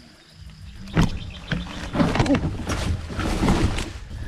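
Animals calling in a rapid series of short cries that rise and fall in pitch, starting about a second in after a single knock, over steady low wind and riding rumble.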